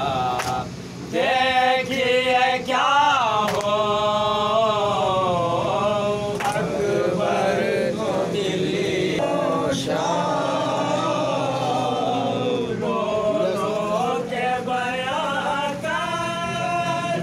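A group of men singing a noha, a Shia mourning lament, together in unison with no instruments, led by one reciter.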